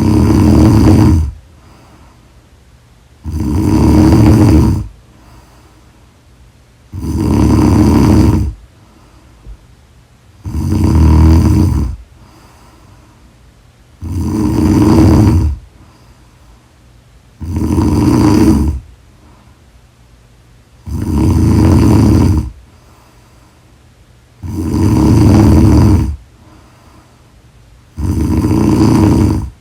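A person snoring in slow, regular breaths, about nine loud snores, each about a second and a half long, roughly every three and a half seconds.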